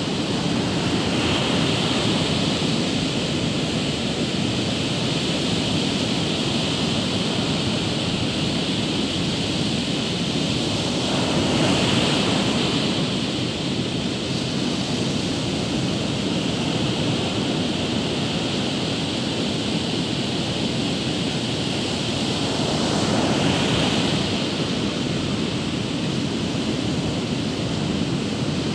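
Ocean surf on a sandy beach: a steady rush of breaking waves, swelling louder three times, roughly every ten to twelve seconds, as larger waves break and wash up the shore.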